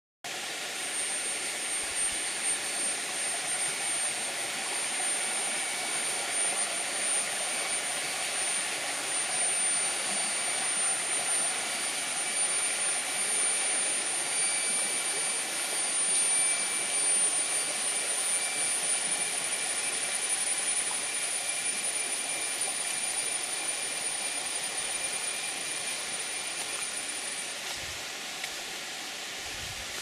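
Jungle insects, likely cicadas, droning steadily: a dense high hiss with a thin, high, steady whistling tone over it that cuts off near the end.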